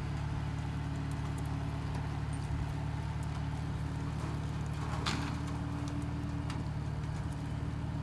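Farm tractor engine running steadily at low speed under load, towing a skid-mounted chicken coop across pasture. A brief rushing noise comes about five seconds in.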